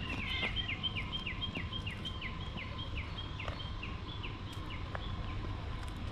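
A bird calling a rapid series of short whistled notes, each sliding down in pitch, about three or four a second for some five seconds.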